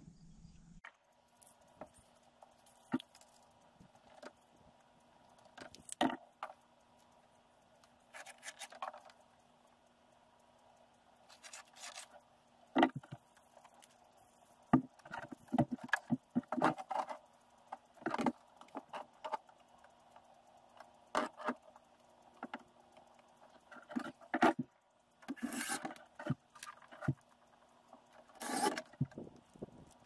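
Metal shelf brackets and screws being handled and fitted against a wooden barn door: scattered clicks, knocks, scrapes and short metallic rattles, with a faint steady hum underneath.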